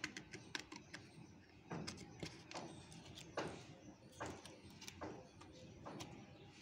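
Faint, irregular clicks and crinkling scrapes of a screwdriver piercing and tearing the aluminium foil seal on a plastic toner bottle's mouth.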